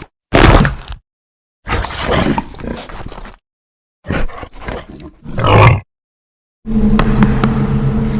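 Designed Jurassic Park dinosaur vocalizations for a Paradeinonychus: a run of short roars and calls, each followed by silence. Near the end comes a long, steady, low growl with a rattle of clicks running through it.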